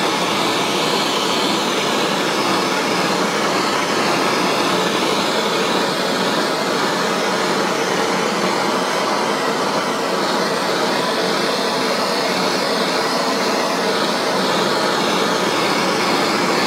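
Handheld gas blowtorch burning with a steady, unbroken hiss of flame.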